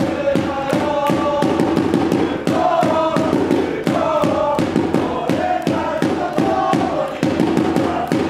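A small group of football supporters singing a chant together, over a fast steady beat of sharp hits, about three a second.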